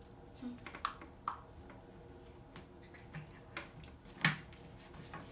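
Slime being handled and squeezed by hand, giving a few scattered soft pops and clicks, the loudest about four seconds in.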